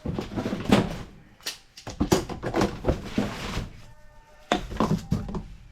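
A series of thunks and knocks, several sharp impacts in quick succession with a short lull near the end.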